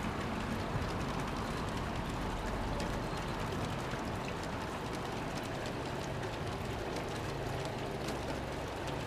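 Freight train rolling past: a steady rumbling noise with scattered light clicks of wheels on the rails.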